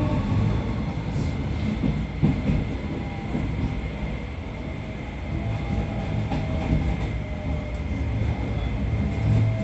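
Running sound of a Keio 5000-series electric train heard from inside the car: a steady low rumble of wheels on rail with a few short clacks over rail joints. Under it is a faint whine whose pitch drifts slowly.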